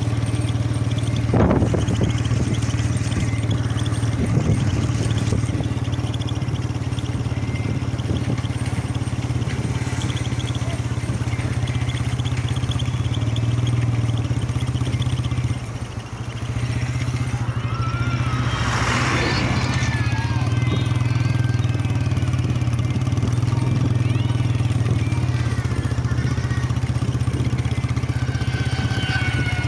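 Motor vehicle engine running steadily, with a constant low hum and road noise, while it tows a rider on a rope. About two-thirds through there is a brief burst of noise with a few wavering tones over it.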